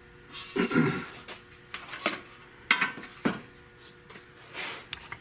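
Irregular metal knocks and clanks, about six strikes with short ringing, as the bent flange of a stamped-steel Buick valve cover is worked flat.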